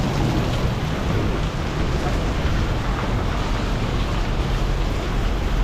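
Steady heavy rain, with a constant low rumble underneath.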